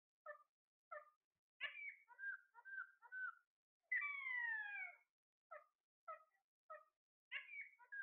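A caged Alexandrine parakeet whistling a repeated phrase: short whistled notes in small groups, then about four seconds in a single long falling whistle about a second long, after which the short notes start over.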